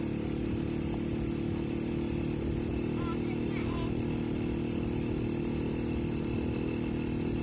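Small motorcycle engine running steadily at cruising speed, a constant low hum with no change in pace.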